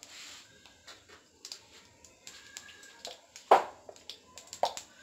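Sparse crackling and small pops of mustard and cumin seeds frying in hot oil in a steel pan, with one louder knock about three and a half seconds in as a kitchen container is handled.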